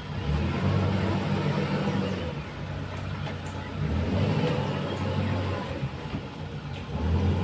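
Heavy diesel machine engine running under load, its revs swelling up three times and easing back between.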